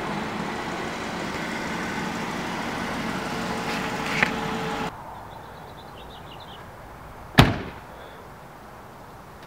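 A car running with a steady hum, which cuts off abruptly about five seconds in. A single sharp bang follows about two seconds later, a car door slamming shut.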